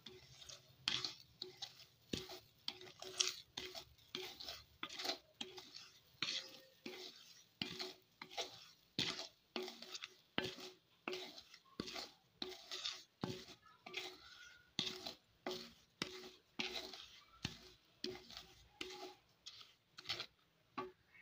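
Wooden spatula stirring and scraping raw Gobindobhog rice grains and peanuts around a kadai as they dry-roast in a little ghee, in repeated strokes about one and a half a second.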